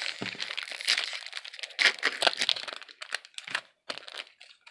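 Foil Pokémon card booster pack wrapper crinkling, with trading cards being handled; a run of irregular crinkles and crackles.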